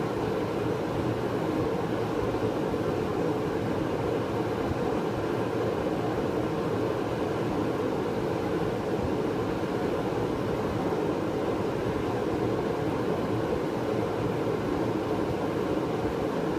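Portable forced-air barn heater running: a steady blower-and-burner roar with no rhythm or change, just after being lit.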